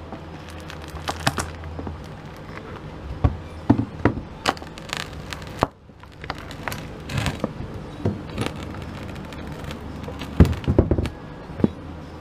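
Hand tools prying and knocking at old wooden flooring and trim: irregular sharp clicks, cracks and knocks, with a low steady hum under parts of it.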